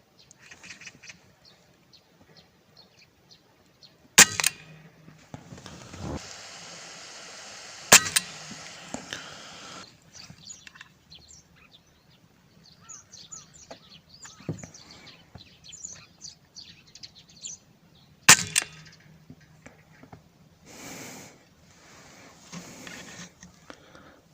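Three sharp air rifle shots, about 4 and 8 seconds in and again near 18 seconds, with birds chirping between the shots.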